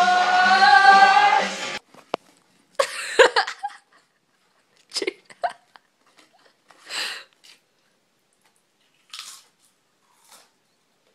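Music with a singing voice, cut off suddenly about two seconds in. Then a few short, separate bursts of crunching as Pringles potato crisps are bitten and chewed, with a quick click near the start.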